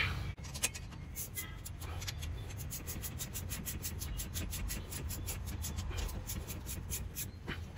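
Ratchet wrench clicking in a steady run of several clicks a second as the caliper guide-pin bolts are run in, with a sharper knock right at the start.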